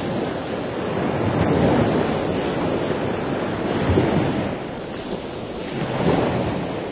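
Ocean surf: waves washing in with a swell about every two seconds, fading out near the end.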